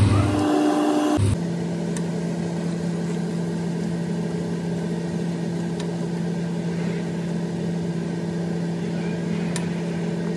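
Puris deep-frying in hot oil in a heavy pot, a steady sizzle over a steady low hum. A few faint light clicks as a steel slotted spoon touches the pot.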